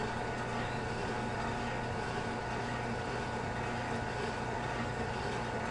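Hottop home coffee roaster running steadily with its fan and drum motor whirring under a constant low hum, beans still heating with no cracks yet, shortly before first crack.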